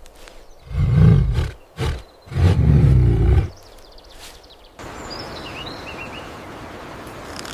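A big cat roaring twice, two deep, loud calls about a second each. About five seconds in it switches to a steady outdoor hiss with a few faint bird chirps.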